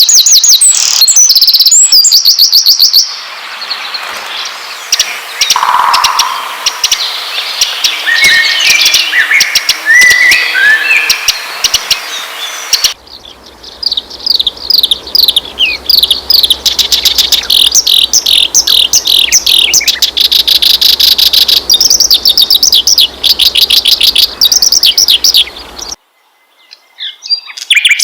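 Songbirds chirping and trilling loudly in quick repeated notes, in several spliced recordings that change abruptly about 3, 13 and 26 seconds in, with a short silent gap near the end. This is a lure track of songbird calls played to prompt caged songbirds to start singing.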